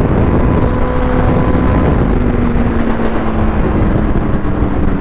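Kawasaki Z900's inline-four engine running at road speed, its note sagging slightly, under a heavy rush of wind over the microphone.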